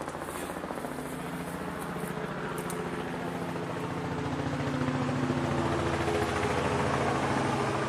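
A vehicle's engine running with a steady low pitch and fast firing pulses, growing steadily louder as it comes closer.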